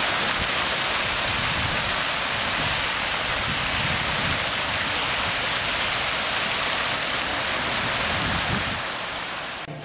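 Large multi-jet fountain splashing into its basin: a steady rushing hiss of falling water, cutting off near the end.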